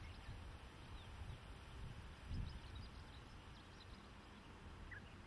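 Faint outdoor ambience: a few faint, short, high bird chirps over a soft low rumble of wind on the microphone, which swells about two and a half seconds in.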